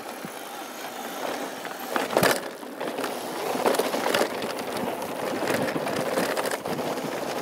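2013 Norco Truax mountain bike rolling fast down a dirt and gravel trail: tyres crunching over the ground and the bike rattling over bumps, with a sharp knock about two seconds in.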